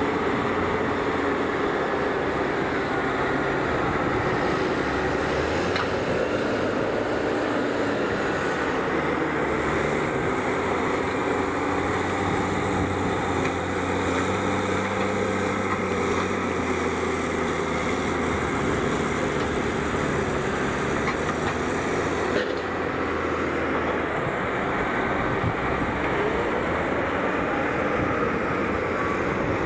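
Diesel engines of two tractors, a Valtra and a Case IH, working under load as they push and spread grass silage with front buckrakes on the clamp. The engine note is steady and shifts up and down as they drive on and off the pile.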